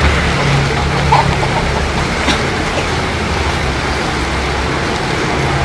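Steady road-traffic rumble mixed with the hiss of falling rain, with one short sharp tick a little over two seconds in.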